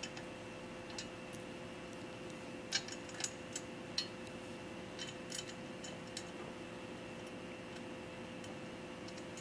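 Faint, scattered metallic clicks and ticks of small bolts, washers and nuts being handled and threaded by hand onto a steel tricycle frame, several of them about three to four seconds in, over a steady faint hum.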